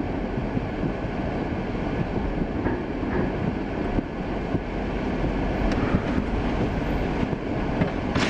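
Steady engine and road noise heard from inside a moving vehicle's cab, its tyres running on wet pavement.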